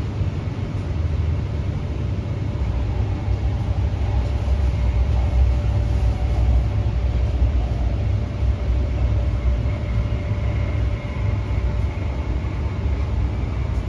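Hyundai Rotem K-Train electric multiple unit heard from inside the passenger car while running at speed: a steady low rumble with a faint electric motor whine that shifts in pitch, higher near the end.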